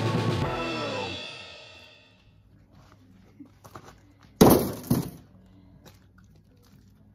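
Background music fading out, then a concrete block dropped into a steel wheelbarrow: a loud crash about four and a half seconds in, with a second knock half a second later.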